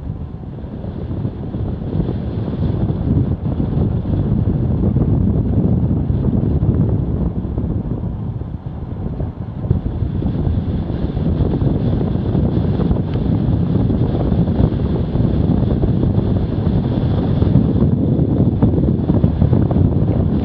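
Wind rushing over the microphone of a camera on a road bike descending at speed: a dense low rumble that builds over the first few seconds and then stays loud.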